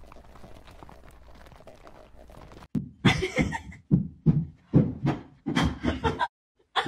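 A dog barking in quick repeated barks, about two or three a second, starting abruptly about a third of the way in after a faint hum.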